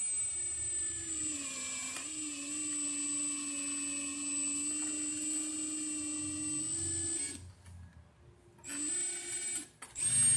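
Power drill/driver driving a screw, its motor whining steadily for about seven seconds. The pitch drops briefly under load about two seconds in. It stops, then gives a second short burst about nine seconds in.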